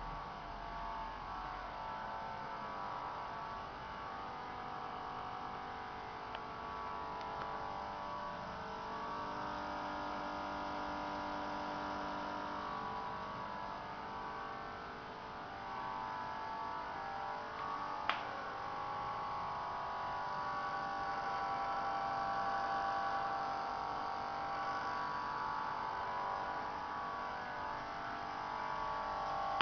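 Motor of a new Gafa 370A running with a steady hum made of many fixed whining tones: the noise in the motor that the owner finds wrong in a new machine. One sharp click about 18 seconds in.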